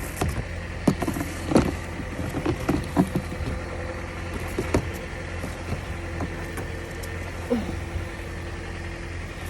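Car engine running at idle, a steady low hum, with several sharp knocks and scrapes in the first half as snow is cleared off the car and its windshield wipers.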